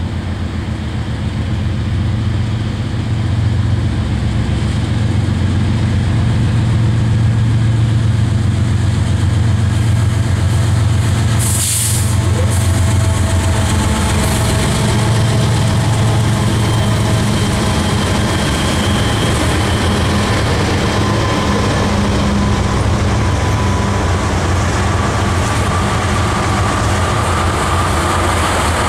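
Loaded oil train passing close by: its lead diesel-electric locomotives (a BNSF GE ES44AC, CSX GE Dash 9 and Dash 8 units and a Maine Central EMD SD40M-2) pass with a loud, steady engine drone that builds over the first few seconds, followed by loaded tank cars rolling past. A brief hiss comes about twelve seconds in, and thin whining tones come from the passing cars later on.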